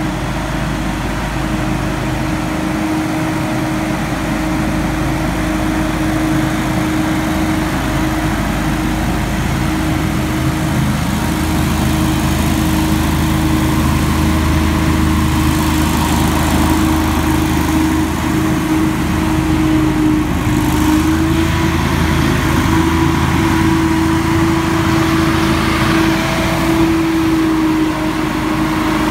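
Hurricane X3 stand-on leaf blower running, its gas engine and big fan making a steady drone with a constant pitched whine. It grows louder about a dozen seconds in as the machine comes closer.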